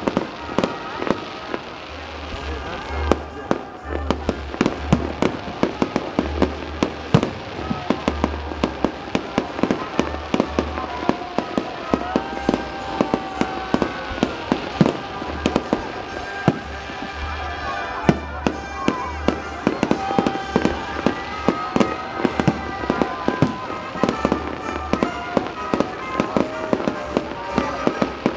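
Fireworks display: a rapid, continuous run of bangs and crackling bursts from aerial shells.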